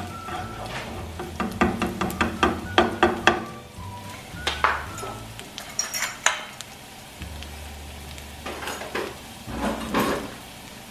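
A utensil clacking and scraping against a pan as garlic is stirred in hot oil, with a light sizzle underneath. There is a quick run of clacks in the first few seconds, then only a few scattered strikes.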